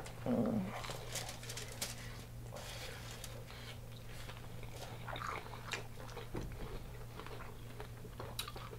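Close-up biting and chewing of crunchy, Hot Cheetos-crusted deep-fried food, with many small crisp crunches scattered through, over a faint steady low hum.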